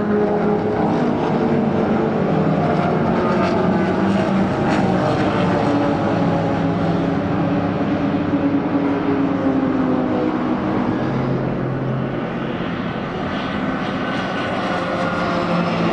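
Racing car engines running hard at high revs. Several engine notes overlap and slowly shift in pitch, with no break in the sound.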